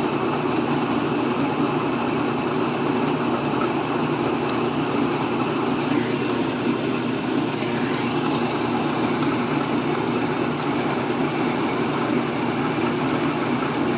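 Washing machine spinning on its delicates cycle, running with a steady hum. The machine is out of level.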